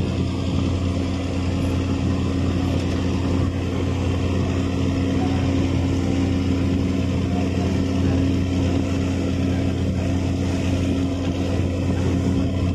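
Ship's diesel engine running with a steady low drone, holding two deep tones without change.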